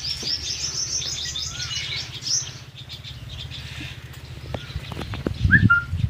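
Small birds twittering in rapid high chirps for the first two seconds or so, over a steady low hum. Near the end comes a short bird call and a low thump.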